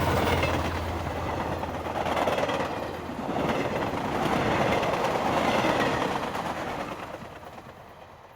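O gauge model trains rolling on the layout's track, a steady clickety-clack that swells twice as the trains pass, then fades out near the end.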